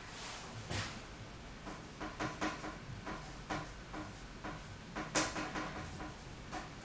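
Painting supplies being handled on a table: a string of light knocks and clicks, the sharpest about five seconds in.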